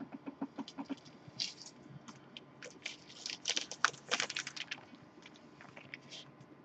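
Clear plastic sleeve on a LaserDisc jacket crinkling and rustling as it is handled, a run of irregular crackles that is busiest in the middle.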